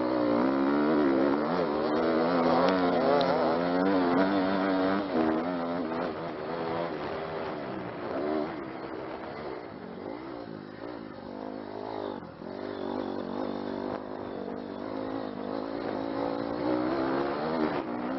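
Dirt bike engine heard from a camera on the bike as it is ridden over a dirt motocross track, its pitch rising and falling with the throttle. It is loudest in the first few seconds, eases off through the middle and builds again near the end.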